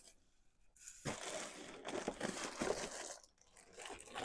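Packaging being handled while unboxing: rustling and crinkling of wrapping and box material, starting about a second in and going on in two stretches with a short pause between.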